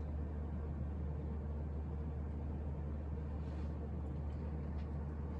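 1994 Casablanca Delta II ceiling fan with an Emerson K55 motor running steadily, its four blades moving air with an even low rumble and rush. The motor itself is dead silent, with no hum or rattle of its own.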